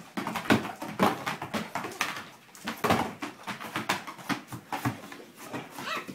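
Two Dobermans play-fighting: rapid scuffling, thumps and claw clicks on a wooden floor, mixed with dog vocal noises, and a short whine near the end.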